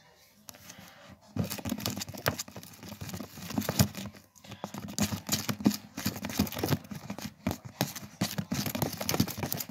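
Hands kneading and squeezing sticky slime in a plastic bowl: a dense run of wet, crackling smacks and squelches that starts about a second and a half in. The slime is still sticky and not yet activated.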